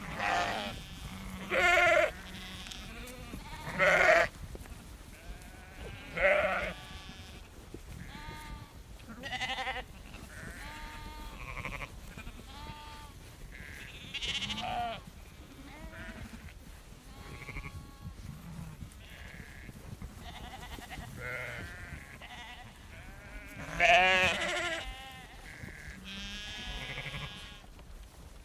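A flock of sheep bleating: many overlapping baas from several animals, a handful loud and close among many fainter ones.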